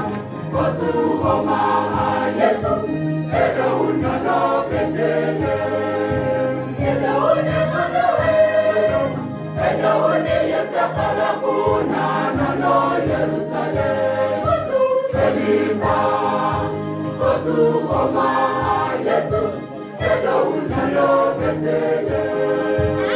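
A church choir singing a Christmas carol in several voices, over a low, steady accompaniment with a regular beat.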